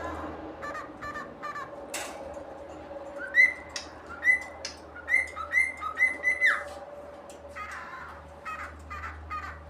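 Cockatiel whistling: a run of loud, clear whistled notes, several of them held briefly, in the middle, with shorter chirps and squawks before and after.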